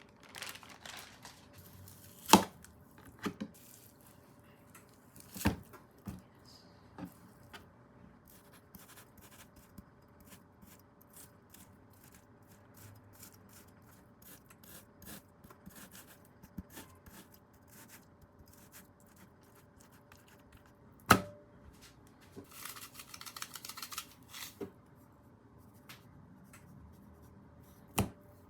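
Kitchen handling sounds: scattered sharp knocks and clicks of utensils and containers, the loudest about two, five and twenty-one seconds in, with a couple of seconds of rustling, like a plastic wrapper, a little past twenty-two seconds, over a faint steady hum.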